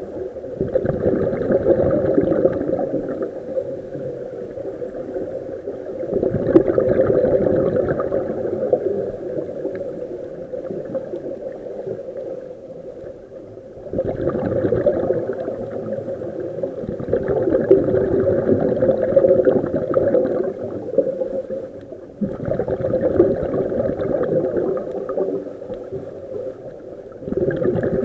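Diver breathing through a scuba regulator, heard underwater: exhaled bubbles gurgle out in bursts of two to three seconds, every four to five seconds, with quieter gaps between.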